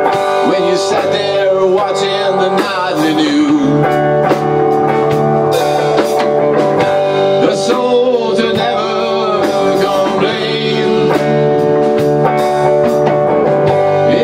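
Blues-rock band playing live: two electric guitars over a drum kit, loud and steady, with bent, wavering notes.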